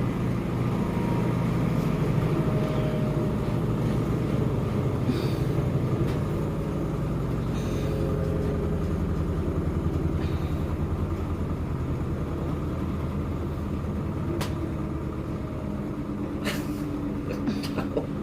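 New washing machine's drum winding down after its high-speed spin: a steady low motor hum that gets gradually quieter, with a few faint clicks.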